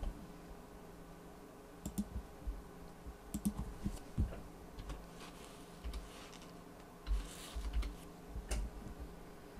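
Computer keyboard typing: a handful of scattered keystrokes in short runs, some with a dull low thud, as a short number is keyed in.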